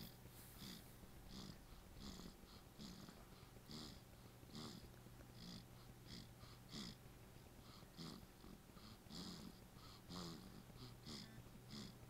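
Newborn baby snoring in his sleep: faint, short snuffling snores in quick, irregular succession, about two a second.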